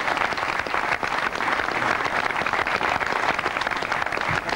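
A seated studio audience applauding, a steady, even crackle of many hands clapping.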